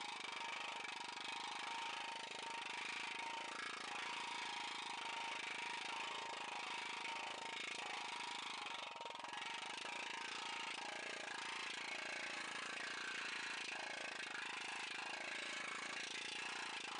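Planishing hammer running steadily, its dies rapidly hammering a sheet-metal motorcycle fender panel as it is worked through, smoothing the area that was just heat-shrunk.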